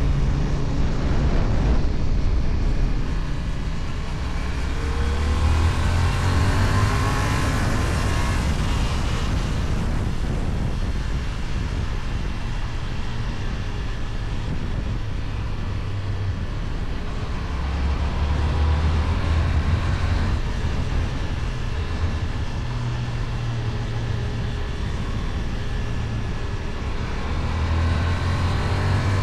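Kove 625X Adventure motorcycle with its stock exhaust, riding along the road: the engine note rises and falls with the throttle, over a steady rush of wind and road noise.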